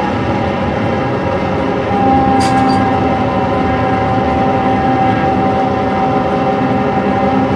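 Live harsh noise music: a dense, steady wall of rumbling noise, with a held tone entering about two seconds in and sustained over it.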